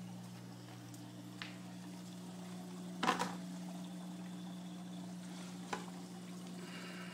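Aquarium pumps humming steadily under a hiss of running, bubbling water from the tank's circulation. A few soft knocks from handling, the loudest about three seconds in.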